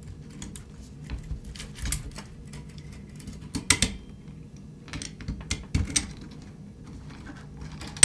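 Irregular metallic clicks and light scraping as a Colt 1911's recoil spring plug is pressed down against the recoil spring and the barrel bushing is turned by hand. Two sharper clicks, one about three and a half seconds in and a louder one at the end.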